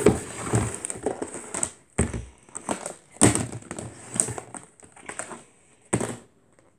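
Plastic slime tubs and containers being picked up, shuffled around and set down: a string of irregular knocks and clatters, loudest about two, three and six seconds in.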